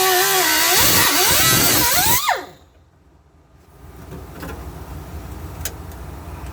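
Handheld power tool running, its pitch wavering up and down under load, then falling and stopping a little over two seconds in. After it, a low hum and a few faint clicks.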